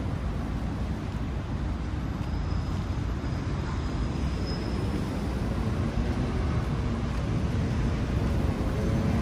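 City street traffic noise: a steady low rumble of passing vehicles, growing a little louder near the end.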